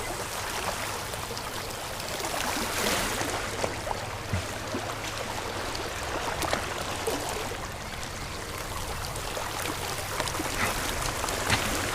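Ocean water washing and trickling along the shoreline, a steady hiss that swells and eases gently, with a few faint ticks.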